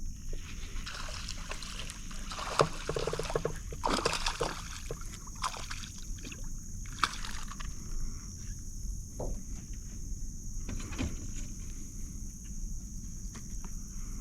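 Knocks and rustling from someone moving about in a small fishing boat, with sharp knocks about two and a half, four and seven seconds in, over a steady low hum.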